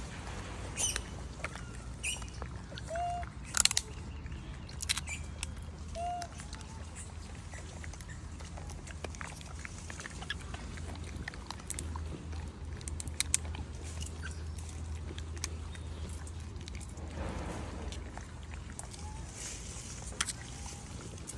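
Thin plastic jelly cups crackling and clicking as a macaque handles and licks them, in scattered sharp clicks over a low steady hum. Two short, faint, high squeaks come about three and six seconds in.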